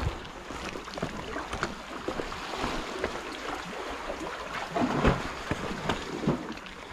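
Small sea waves lapping and sloshing against the boulders of a rock breakwater, with scattered small knocks and one louder knock about five seconds in.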